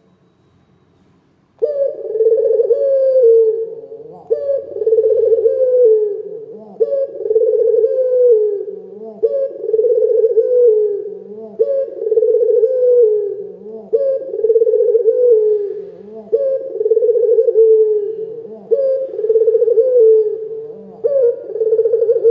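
Ringneck dove (Indonesian puter) cooing loudly: a deep rolling coo with a falling end, repeated about every two and a half seconds. It begins about a second and a half in and comes nine times.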